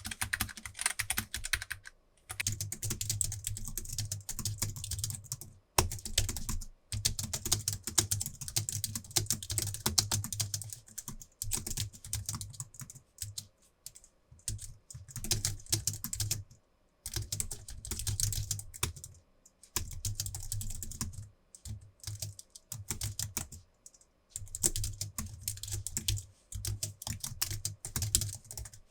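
Typing on a Logitech MX Keys full-size keyboard with low-profile scissor switches: fast, firm runs of key clicks in bursts of a few seconds with short pauses between them. For the first two seconds it is a Keychron K3 with low-profile optical red switches, followed by a brief pause.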